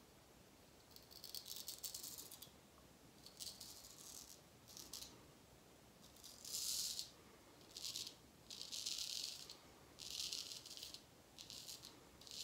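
A Filarmonica 14 straight razor cutting whiskers through lather in short strokes: about nine brief, crackling scrapes, each a second or less. The very sharp edge meets little resistance.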